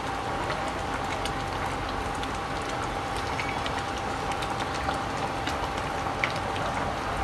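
Pot of mung bean soup simmering and bubbling steadily while being stirred with a spatula, with scattered small ticks and clicks, and a faint steady tone underneath.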